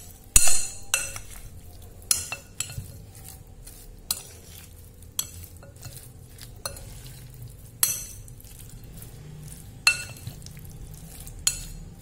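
A metal spoon mixing raw boneless chicken pieces in a flour and soy-sauce marinade in a glass bowl. The spoon clinks and scrapes against the glass about once a second, loudest about half a second in.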